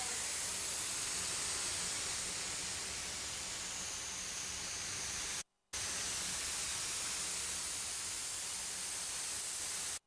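Compressed-air spray gun hissing steadily as it sprays a coating onto a condenser coil's fins. The hiss cuts out for a moment about halfway through.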